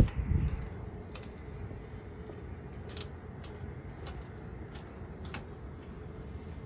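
Steady low outdoor background rumble, with a few heavy low thumps right at the start and scattered faint sharp ticks at irregular intervals.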